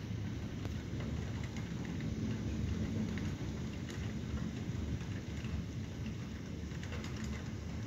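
Steady rain falling in a thunderstorm, with a continuous low rumble underneath and scattered sharp drip ticks.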